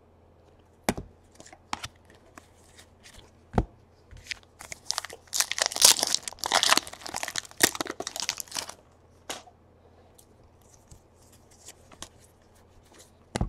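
A trading-card pack wrapper crinkling and tearing open, with a dense stretch of crackle in the middle, surrounded by light clicks and rustles of cards being handled.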